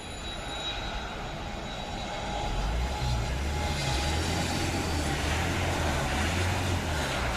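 Airbus A321 jet airliner on landing approach passing close by, its engine noise swelling to a loud, deep rumble about two to three seconds in and staying loud.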